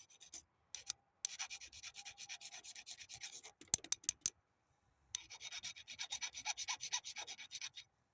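Scraping a car battery cable terminal clean of corrosion: two bursts of quick back-and-forth rubbing strokes, with a few sharp clicks in the pause between them.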